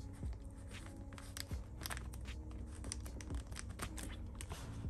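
Clear plastic binder pocket pages crinkling, with many light irregular clicks and scrapes as photocards are slid in and out of the sleeves.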